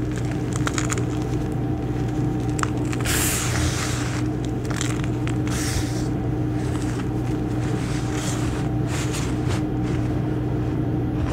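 Hands crushing and raking pale blue gym chalk powder: soft crunches and gritty swishes at irregular intervals, about a dozen strokes, over a steady low hum.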